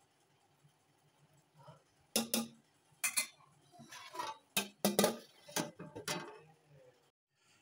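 Metal spoon clinking and scraping against an aluminium cooking pot as the rice is stirred, about seven sharp knocks over four seconds, with a lid clattering onto the pot near the end as the pulao is covered to steam on dum.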